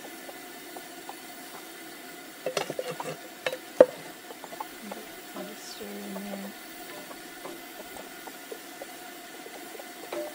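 Wooden spoon stirring and scraping through peppers, onions and mushrooms in a cast iron skillet over a faint sizzle, with a run of small knocks and one sharp knock about four seconds in.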